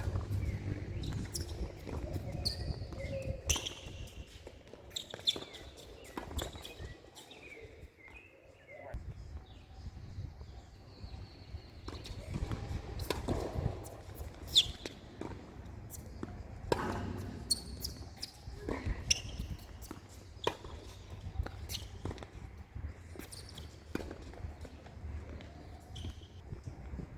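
Tennis balls being struck with rackets and bouncing on the court: sharp, irregularly spaced impacts, the loudest about halfway through.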